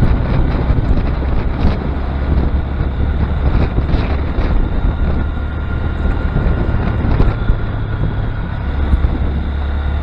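Honda Grom's single-cylinder engine running steadily while riding, with heavy wind buffeting on the action camera's microphone.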